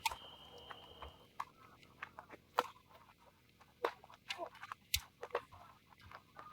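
Tennis ball being struck by rackets and bouncing on the court during a singles rally: a series of sharp pops roughly a second apart.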